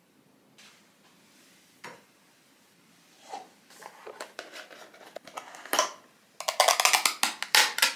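Plastic skincare jar of toner pads being handled and its lid taken off: scattered light clicks and taps, building to a dense run of rapid clicking and rustling near the end.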